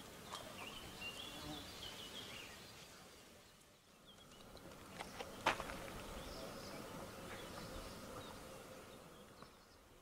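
Faint outdoor ambience, with a few small chirps in the first two seconds, then a single sharp click about halfway through and a faint steady hum after it.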